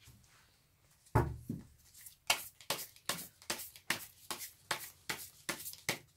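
A deck of tarot cards being shuffled by hand: a low thump about a second in, then a run of crisp card slaps about three a second.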